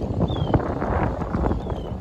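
Strong wind buffeting the microphone in uneven gusts, with a faint short falling high chirp about half a second in.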